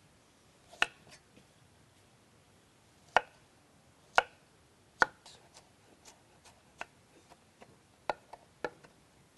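Kitchen knife cutting a carrot on a cutting board: sharp, irregular knocks, a few loud ones about a second apart, then lighter, quicker taps in the second half.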